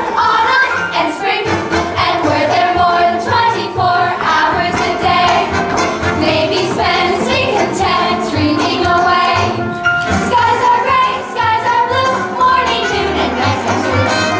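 A chorus of young girls singing a lively musical-theatre number together, with instrumental accompaniment underneath.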